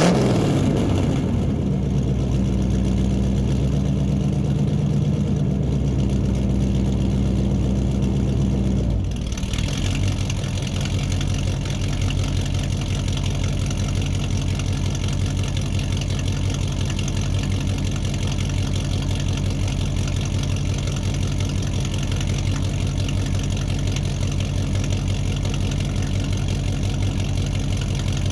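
Vehicle engine starting up and running. About nine seconds in it changes and settles into a steady idle with a fast, even throb.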